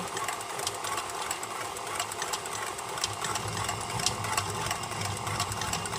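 Electric mixer running steadily, its beaters whirring through a liquid mix of oil, eggs and buttermilk, with small ticks of the beaters against the bowl.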